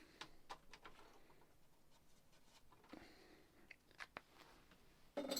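Near silence with a few faint taps and scratches from a marker pen dabbing black dots beside the screws.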